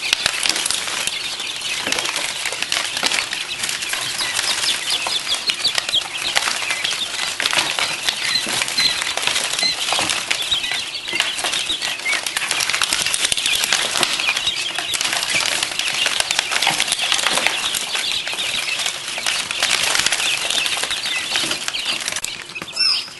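Quail chicks fluttering and scrabbling in a cardboard box as they are caught and moved by hand: a continuous dense rustle of small wings and claws on cardboard and newspaper, with many short high chirps throughout.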